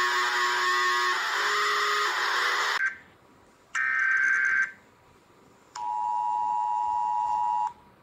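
Emergency alert tones. A harsh, buzzing alarm tone with a few steady pitches cuts off about three seconds in. After a short gap comes a one-second tone burst, then a steady two-note tone that lasts about two seconds and stops abruptly near the end.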